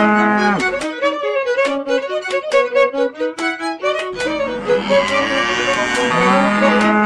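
Fiddle music: a held note, then a quick run of short notes from about a second in, and the held note comes back about four seconds in.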